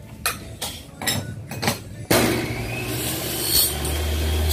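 A few sharp knocks and clicks from a glass pane, an aluminium window frame and a rubber glazing strip being handled. About two seconds in, a loud steady noise starts suddenly, and a low hum joins it near the end.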